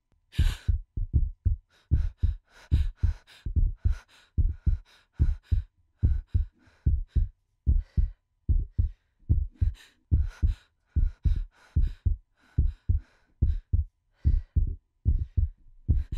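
A heartbeat sound effect: a steady run of low, paired thumps, about two to three beats a second, with a short hit right at the start.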